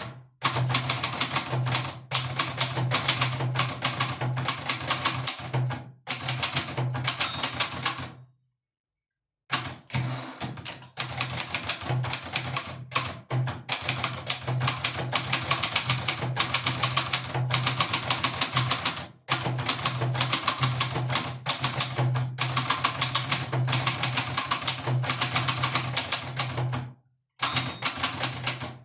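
1963 Hermes Baby portable typewriter being typed on in quick runs of key strikes, with short pauses between lines. Its margin bell rings twice, about seven seconds in and near the end.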